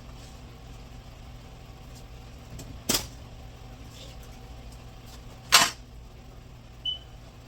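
Two sharp knocks about two and a half seconds apart, from hand work on the car's parts during radiator removal, over a steady low hum. A brief high chirp near the end.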